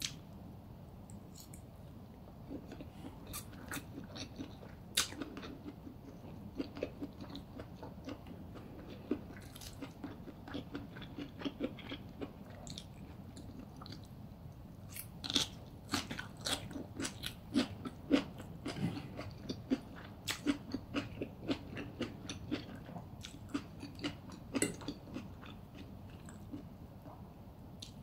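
Chewing and crunching a mouthful of crispy funchoza, a glass-noodle salad with crisp vegetables: wet chewing broken by many short, sharp crunches, most frequent in the second half.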